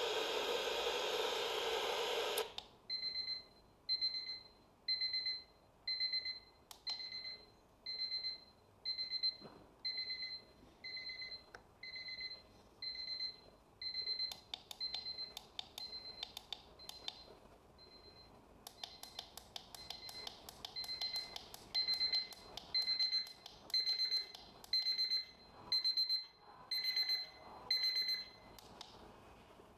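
Sunrise alarm clock playing its alarm sounds while being set: a short noisy burst of one of its ringtones, then a repeating two-tone electronic beep at about one and a half beeps a second. The beep drops softer about halfway through, then steps up and is loudest near the end as the alarm volume is changed, with light button clicks.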